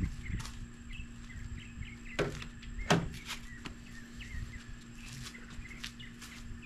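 Outdoor background with small birds chirping and a faint steady hum, broken by scattered light knocks and clicks, two sharper ones about two and three seconds in.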